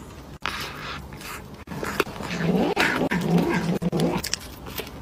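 A domestic cat making a low, wavering vocal sound while it eats a treat held in its front paws, lasting about two seconds from about two seconds in.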